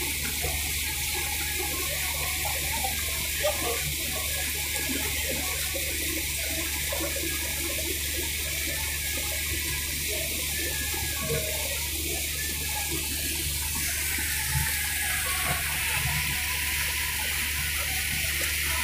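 Steady rush of water along a moving riverboat's hull, with the low, even drone of the boat's engine underneath.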